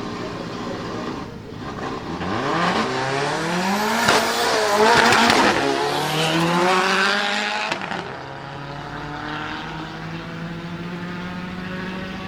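Turbocharged four-cylinder hatchback race car accelerating hard past, its engine note climbing through gear changes. It is loudest in the middle, then drops away sharply near the end to a steadier, quieter drone as it pulls off up the hill.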